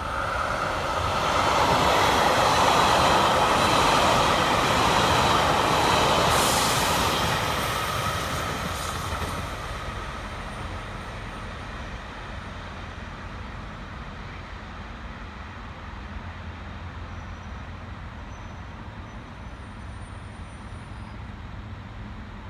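JR Hokkaido 789 series electric train passing at speed: wheel and running noise swells about a second in, stays loud for about seven seconds, then fades away as the train recedes.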